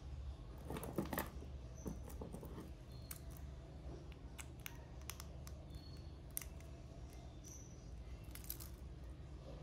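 Small scattered clicks and light taps of fingers working a steel wristwatch with its caseback open, seating a new SR621SW button-cell battery, over a low steady hum.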